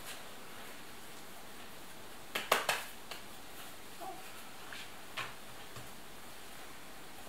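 A short clatter of kitchenware: three or four sharp knocks close together about two and a half seconds in, followed by a few faint, scattered taps and clicks.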